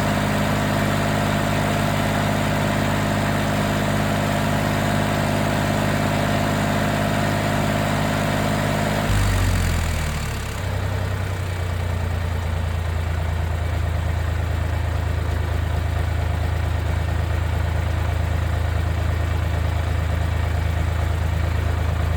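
A small Chinese-built tractor's diesel engine running steadily. About nine seconds in, its pitch falls and it settles into a lower, deeper idle.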